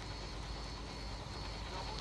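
Steady outdoor background noise: a low rumble with a faint, steady high-pitched drone above it.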